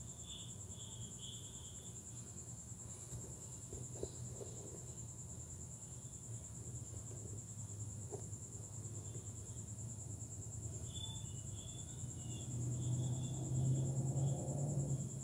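Insects trilling steadily at a high pitch, with short higher chirps at the start and again from about eleven seconds in, over a low rumble that gets louder near the end.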